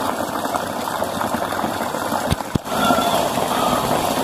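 Rainwater running off the roof in a thin stream and splashing steadily into a basin on the ground, amid the hiss of heavy rain. Two brief thumps come about two and a half seconds in.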